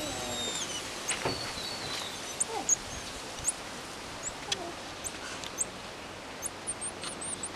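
Emperor tamarins giving short, high-pitched chirps and whistles, scattered singly and then in a quick run of several near the end, with a few light clicks between.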